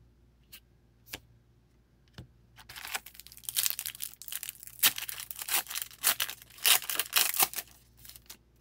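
Foil trading-card pack wrapper being torn open and crinkled: a few faint taps, then a dense run of crackling from about two and a half seconds in that dies down near the end.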